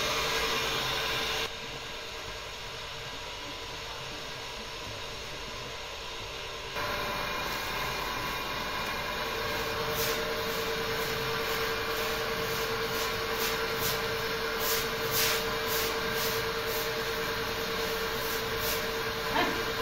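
Water running from a hose onto a wet concrete floor, with a steady hum under it, and a broom swishing across the wet floor in a series of short strokes from about halfway through.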